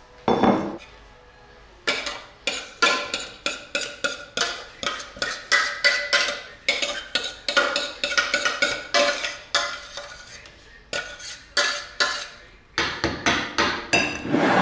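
A metal spoon scraping and knocking oat porridge out of a stainless steel pot onto a plate: a long run of clinks with a short metallic ring, about three a second. Near the start, a ceramic plate is set down on the worktop with a single knock.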